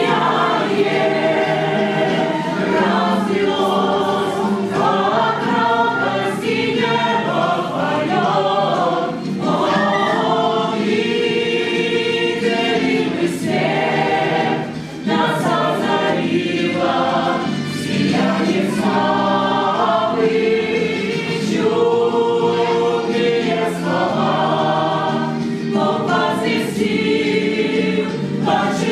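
A choir of voices singing a hymn together, with long held notes and no instruments standing out.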